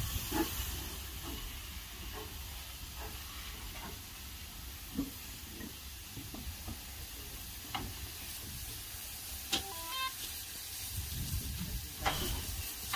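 Taff Vale Railway Class 02 0-6-2T tank engine No.85 hissing steam steadily as it runs slowly up to its coaches, with a few short knocks and a sharp clank near the end.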